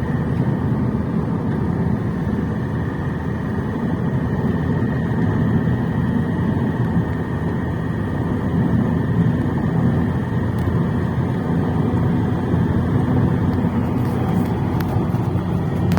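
Ford Mondeo Mk3 2.0 TDCi four-cylinder common-rail turbodiesel running steadily, with the unexplained knock that the owner takes for a diesel injector knock. The knock stays even with the turbocharger not working.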